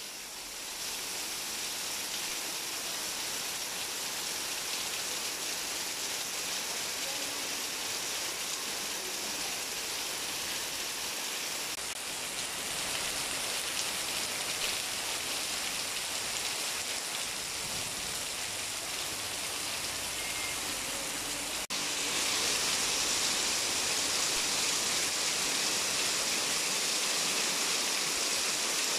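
Heavy rain pouring down in a steady, continuous hiss, which steps up suddenly and gets louder a little over two-thirds of the way through.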